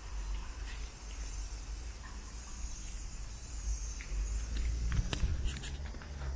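Cicadas droning in a steady high chorus, over a low rumble on the microphone, with a few sharp clicks about five seconds in.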